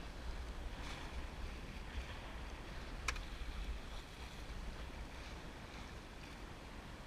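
Water rushing along the hull of a Drabant 27 sailboat under sail, with wind rumbling on the microphone. A single sharp click about three seconds in.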